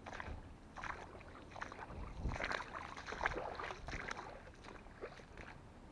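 Irregular splashing and sloshing of shallow swamp water, like footsteps wading through it, thickest in the middle.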